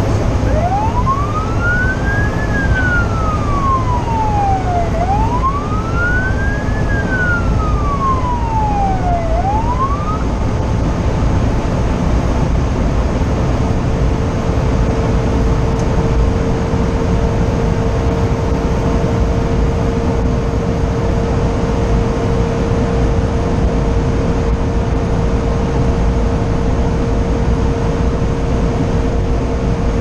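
Fire engine siren wailing up and down twice, each sweep about four and a half seconds, then cutting off about ten seconds in. Under it runs the steady rumble of the truck's engine and the rain-wet road, heard from inside the cab.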